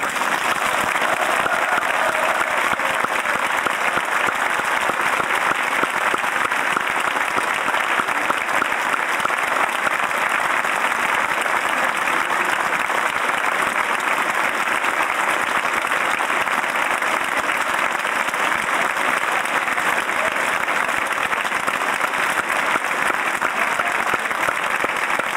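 Audience applauding steadily, breaking out all at once as the music stops.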